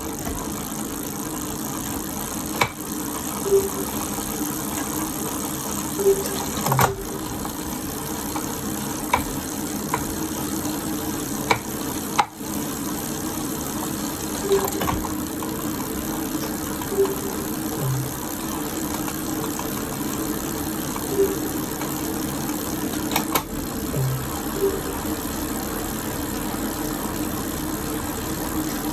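Elite Direto X direct-drive smart bike trainer spinning with a steady whir, broken by sharp knocks every one to three seconds at irregular spacing: the knocking noise the unit has developed after three days of use.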